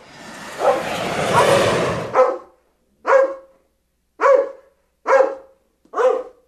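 A dog barking five times, about one bark a second, after about two seconds of rough noise.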